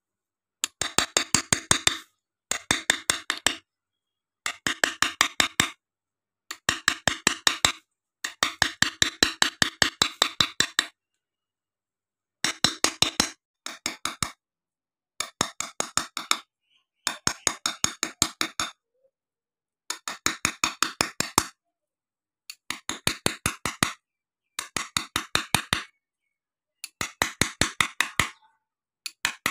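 A pointed steel tool tapping rapidly on a sheet of glass as the picture is stippled into it. Quick, even clicks come about nine a second in short runs of one to three seconds, each strike with a brief glassy ring.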